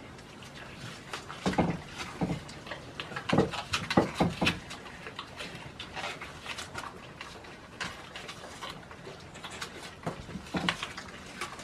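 Goats biting into and chewing apples held out by hand: a run of crisp crunches and chewing clicks, loudest between about one and a half and four and a half seconds in.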